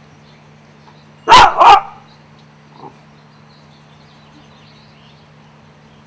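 A dog barking twice in quick succession, loud and close, over a steady low hum.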